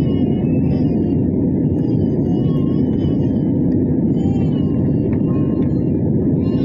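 Steady, deep cabin noise of an Airbus A320-family jet airliner in flight, heard from inside the passenger cabin: engine and rushing airflow at an even level. Faint, wavering higher-pitched sounds sit over it.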